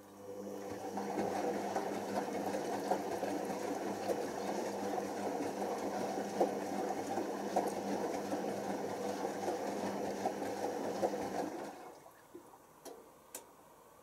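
Hoover Optima OPH714D washing machine tumbling during the final rinse: the drum motor hums steadily as water and laundry slosh inside the turning drum. The tumble starts right away, builds over the first second, and stops abruptly after about twelve seconds. A few faint clicks or drips follow.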